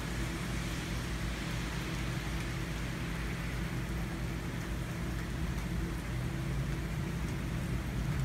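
Steady rain falling during a thunderstorm, an even unbroken hiss with a low steady hum beneath it.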